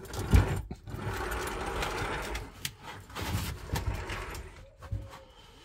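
A steel trolley jack rattling as it is pulled out on its wheels across block paving, with several dull knocks as the plastic diesel tank is shifted under the van.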